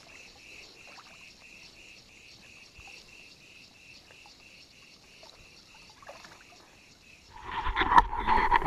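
Insects chirring in a steady, rhythmic pulsing trill of about four pulses a second. A little over seven seconds in, a much louder rushing noise with a low rumble cuts in and covers it.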